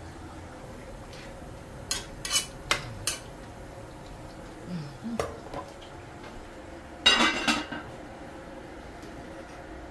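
Cooking pots and utensils clattering on a gas stove: a few sharp knocks of a spoon against a pot about two to three seconds in, and a louder clatter of metal pot and lid about seven seconds in.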